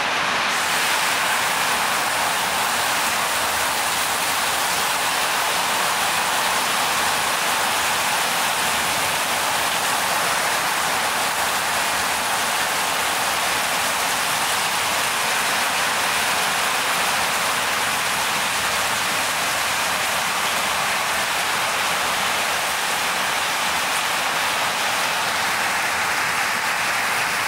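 Heavy rain pouring down steadily, a dense, even hiss.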